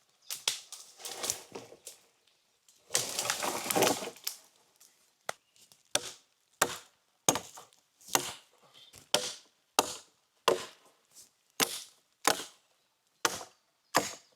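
Wood being worked by hand: two stretches of scraping and crackling, then a steady run of about a dozen sharp wooden strikes, a little more than one a second.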